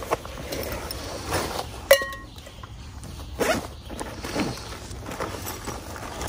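Camping gear being handled: rustling of the pack and its pouches, and a single metal clink about two seconds in that rings briefly, typical of titanium cookware knocking together.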